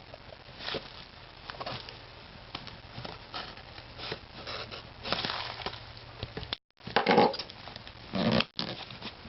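A knife blade cutting through packing tape and cardboard on a small parcel, with irregular scraping, crackling and handling noises. There are louder bursts of rustling about seven seconds in and again just after eight seconds.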